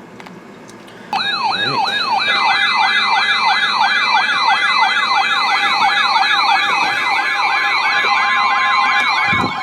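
Weather radio alert alarm: a loud, fast warbling siren tone, about three sweeps a second, starts about a second in and keeps sounding, with other higher alarm tones layered over it, signalling an incoming weather warning.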